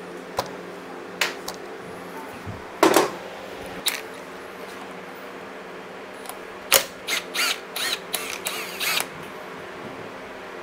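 Hand tools on motorcycle starter hardware, as a lock tab is bent up and its bolt worked out: scattered metallic clicks and taps, then a quick run of clicks and scrapes about seven seconds in. A steady fan hum runs underneath.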